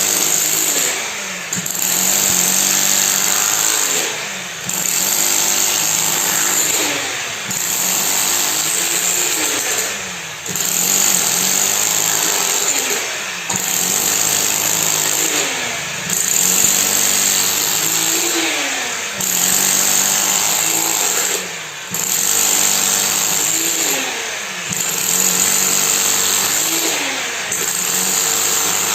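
Concrete-pouring machine running with a steady mechanical noise that repeats in a regular cycle, dipping and sweeping in pitch about every three seconds.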